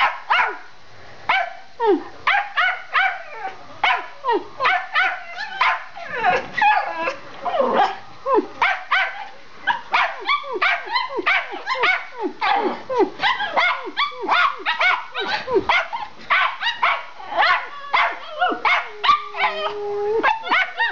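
Schipperkes, small spitz-type dogs, barking in a rapid, unbroken string of sharp barks, about two or three a second, with a longer held note near the end.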